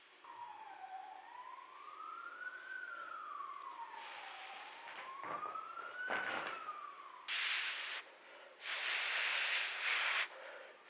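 A siren wailing slowly up and down in pitch. Near the end come two louder bursts of rushing noise, a short one and then a longer one.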